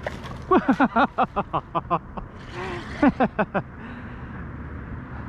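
A person laughing in quick, pitched bursts: a run of about eight in the first two seconds and four more about three seconds in, over steady wind and water noise.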